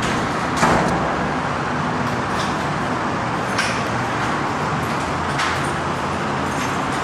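Steady rumbling noise with a hiss, broken by three brief knocks: the loudest about a second in, then one near the middle and one near the end.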